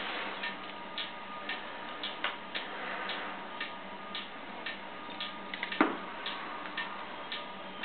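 Regular ticking, about two ticks a second, with a brief louder rubbing sound about six seconds in as the latex mask is peeled off the face.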